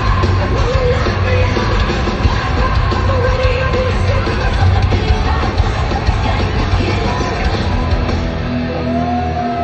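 Heavy metal band playing live at full volume, heard from the crowd in a large hall: pounding drums and bass under distorted guitars and singing. About eight and a half seconds in, the drums and bass drop away, leaving a higher tone that slides upward.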